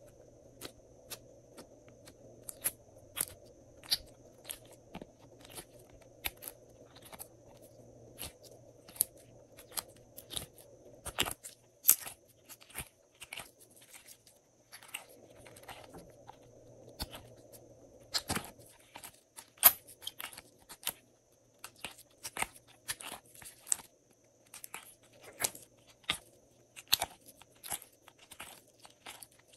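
Glossy slime being pressed, stretched and folded by hand, giving off many sharp, irregular clicks and pops, a few much louder than the rest.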